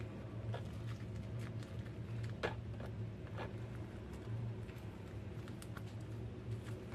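Soft, scattered taps and crinkles of hands rolling a wet rice-paper roll on a perforated plastic mat, with one sharper tap about two and a half seconds in, over a steady low hum.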